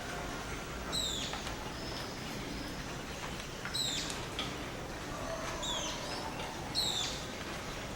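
Rainforest dawn chorus of birds: a sharp, high call that drops quickly in pitch comes about four times, over a background of fainter, lower whistled birdsong.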